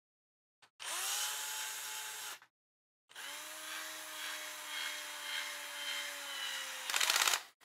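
Bosch cordless screwdriver driving a small M3 screw into a plastic RC car part: two short runs of the motor whine, the first rising as it spins up, the second a little longer and dropping slightly in pitch as it loads. Near the end comes a quick rattle of clicks, the clutch slipping as the screw seats.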